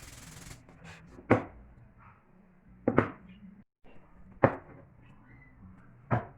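Four sharp knocks about one and a half seconds apart, the second a quick double, typical of work-shop handling or tapping of pieces; a steady hiss cuts off about half a second in.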